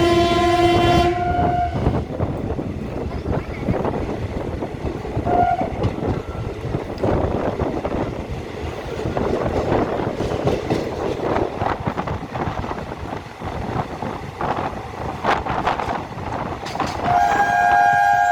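A train horn sounds and stops about two seconds in. The train then runs past with wheels clattering and rumbling over the rails, with a brief tone about five seconds in. The horn sounds again, held, near the end.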